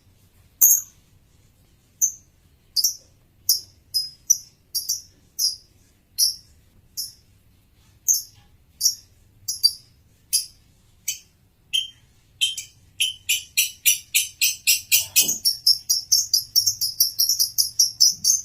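Male lovebird chirping: short, high chirps, at first spaced about half a second to a second apart, then from about two-thirds in a fast run of about four chirps a second.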